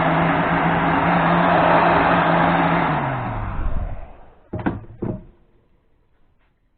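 Heat gun blowing steadily on heat-shrink tubing; about three seconds in it is switched off and its fan winds down with a falling hum. Two sharp knocks follow shortly after.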